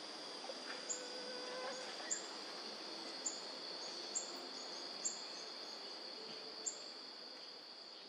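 Tropical forest ambience: a steady high-pitched insect drone, with a short, sharp high chirp repeated roughly once a second and a few faint whistled bird notes in the background.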